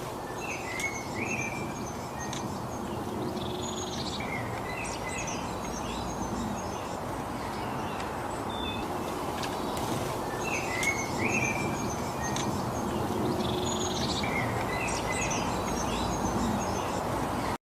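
Several songbirds chirping and whistling in short calls over a steady outdoor background hiss. The same run of calls comes round again about nine seconds later, as in a looped recording.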